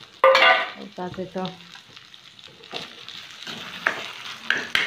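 Boiled potatoes and chickpeas frying in hot oil in a kadai: steady sizzling, with a loud burst near the start and a few sharp clicks in the second half.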